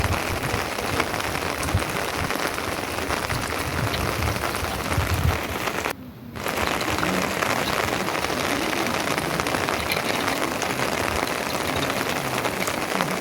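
Heavy rain falling steadily, a dense patter of drops, briefly cut off about six seconds in.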